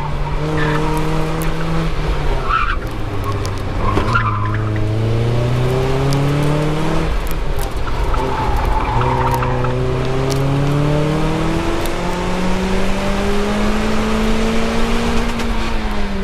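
2004 Mazda Miata's 1.8-litre four-cylinder engine being driven hard on an autocross course, its pitch climbing, falling back and climbing again several times, then dropping away near the end. Short bursts of tire squeal come in the corners.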